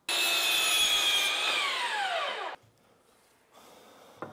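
DeWalt cordless miter saw running at full speed with a steady high whine, then the blade winding down in falling pitch and stopping about two and a half seconds in as the trigger is released.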